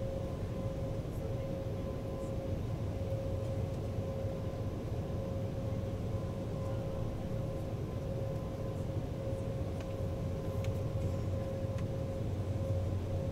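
Jet airliner cabin noise while taxiing: the engines at low taxi power give a steady low rumble with a constant whine over it.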